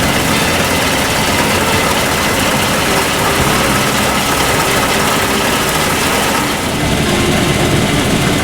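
Case IH 7240 Axial-Flow combine harvester running steadily under load while harvesting wheat: a loud, even engine and threshing-machinery drone.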